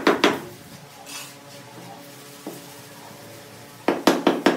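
Sharp, hard knocks on a ceramic floor tile: three quick knocks at the start, then after a quiet stretch a fast run of about five knocks a second near the end.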